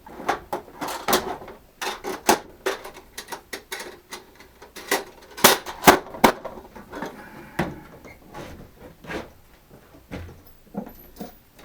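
Irregular sharp knocks and clicks of tools and parts being handled and set down on a workshop bench, several closely spaced and loudest about halfway through.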